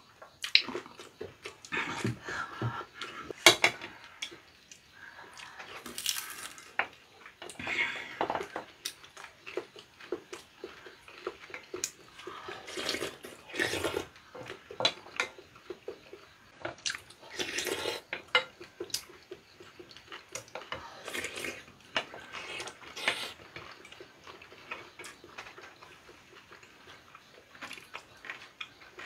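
Wooden spoons and chopsticks knocking and scraping against ceramic soup bowls, with irregular slurping and chewing as rice-cake dumpling soup and fried food are eaten.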